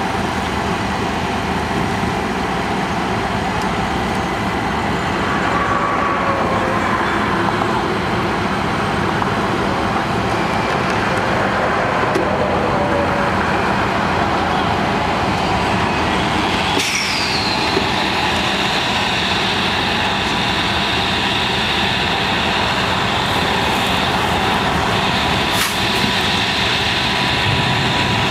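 Heavy-duty wreckers' diesel engines running steadily under load as their booms lift an overturned semi trailer. About 17 seconds in comes a sudden hiss with a quickly falling whistle, and near the end a short click.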